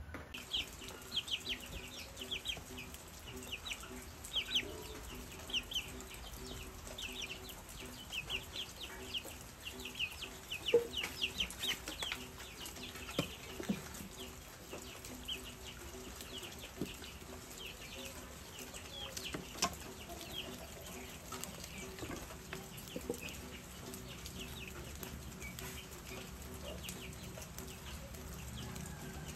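Birds chirping outdoors: rapid short high chirps through the first part that grow sparse later, with a few sharp clicks in between.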